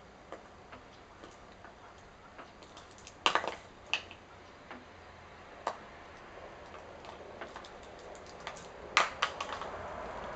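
Empty plastic container clattering and rolling on asphalt as a cat bats and pushes it: a scatter of sharp clicks and knocks, loudest a little over three seconds in and again about nine seconds in, with lighter ticks between.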